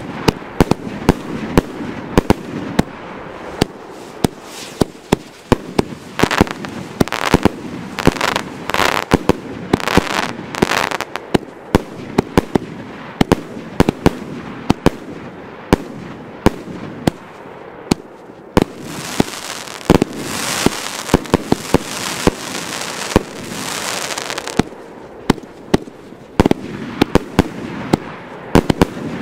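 Classic 'Mutant' fan-shaped firework battery firing a rapid string of shots: sharp launch pops and bursts in the air one after another, with hissing effects in the last third.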